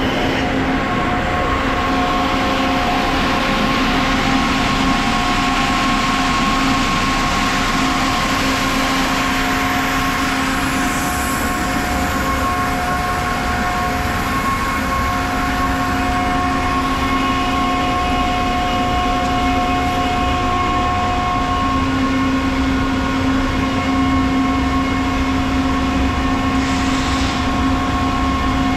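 Ingersoll Rand SSR-EPE50 50 hp air-cooled rotary screw air compressor running steadily: a continuous mechanical hum with a few steady whining tones over it.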